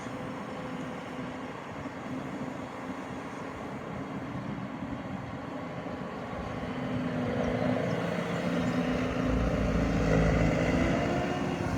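Hyundai HX210AL tracked excavator's diesel engine running steadily, growing louder about halfway through.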